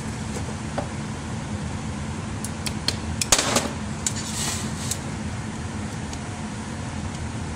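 A steady low shop hum, with a few light metallic clicks and a short scraping clatter about three seconds in, as a snap ring is worked onto a splined steel shaft with snap-ring pliers.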